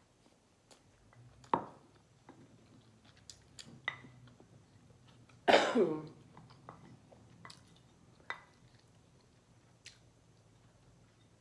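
Close-miked eating sounds: quiet chewing of creamy pasta with scattered small clicks. About five and a half seconds in comes a short cough-like sound from the throat, the loudest moment.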